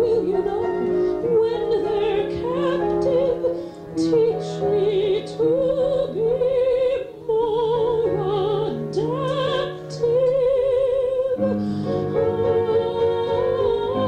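A woman singing in a trained, operatic style with wide vibrato on long held notes, over steady instrumental accompaniment, recorded direct from a club's sound system. About two thirds of the way through, a held note ends and a new, lower accompaniment chord comes in under the continuing voice.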